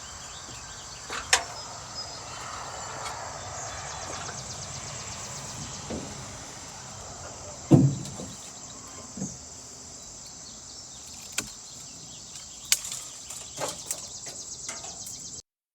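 Steady outdoor insect hum and hiss, broken by a few sharp snaps and knocks, the loudest a thump about eight seconds in.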